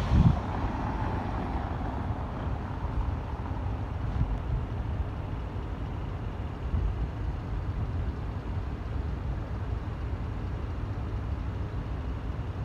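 Outdoor rumble of wind buffeting a phone's microphone, mixed with steady traffic noise from cars. A brief knock at the very start as the phone is moved.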